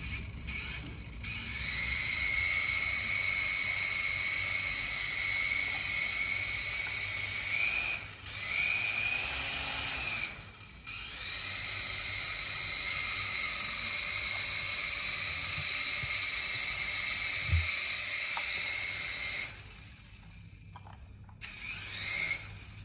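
A toy coaxial RC helicopter's small electric motors whine steadily at a high pitch as the rotors spin. The whine drops away briefly twice, about 8 and 11 seconds in, and glides back up. A single low thump comes near 18 seconds in. The motors cut out about three seconds before the end, then rev once briefly.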